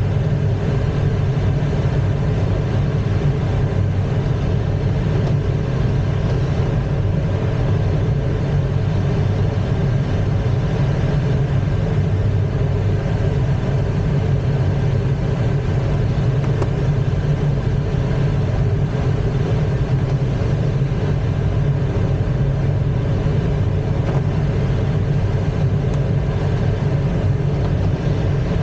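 Steady engine and wind noise inside an ASK-21 glider's cockpit while it is on aerotow: the tow plane's piston engine runs evenly ahead, with airflow rushing over the canopy.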